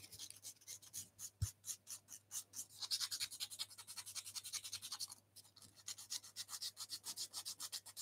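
Abrasive paper rubbed back and forth by hand over a thin turned wooden bird leg, blending in its glued ankle joint: faint, quick, scratchy strokes at about five a second, with a brief pause just after five seconds in.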